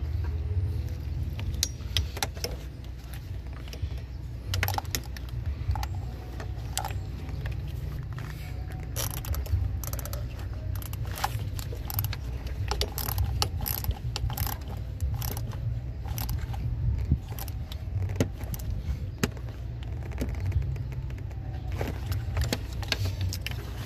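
Ratchet wrench clicking in short, irregular strokes, with scattered metal clicks, as the bolt holding the new intake VANOS solenoid is tightened. A steady low rumble runs underneath.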